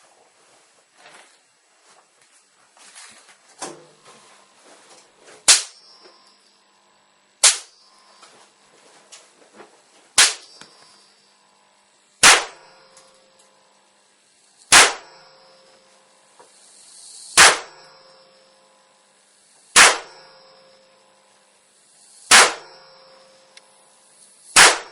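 Sharp, loud cracks of high-current electrical discharges across a spark plug's gap, nine in all, about every two and a half seconds from about five seconds in, each followed by a brief ring. Faint small clicks come before the first crack.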